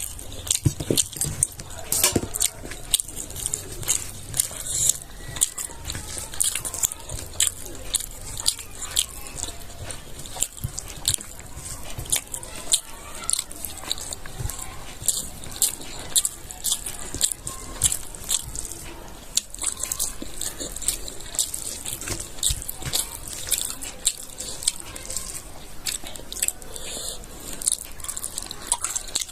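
Close-up eating sounds: wet chewing, lip smacking and mouth clicks as pork in gravy and rice are eaten, a quick irregular stream of sharp smacks throughout.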